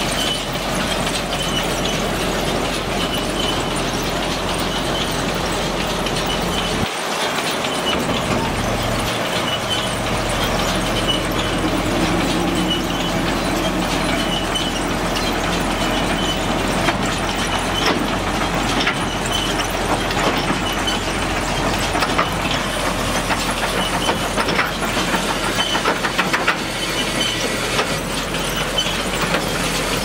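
New Holland BR7090 round baler running under tractor power, making a steady mechanical clatter with rattling and ticking.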